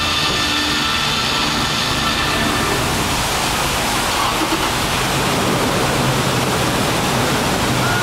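Man-made waterfall pouring down the facade of a high-rise hotel: a steady, heavy rush of falling water.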